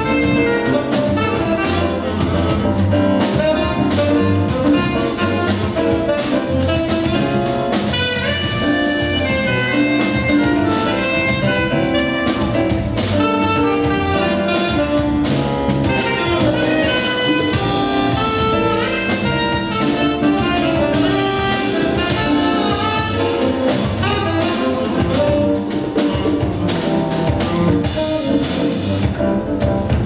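Small jazz ensemble playing live: a saxophone lead over drum kit and conga percussion, with steelpan, electric guitar and electronic keyboard filling out the band.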